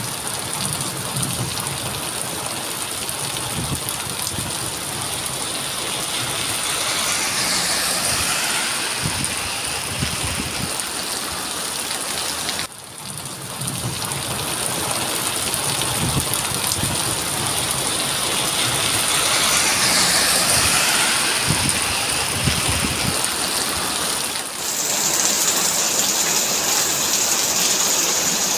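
Heavy rain falling steadily, a dense even hiss of drops on hard surfaces. It swells for a few seconds twice, drops sharply for a moment about 13 seconds in, and changes character near 25 seconds.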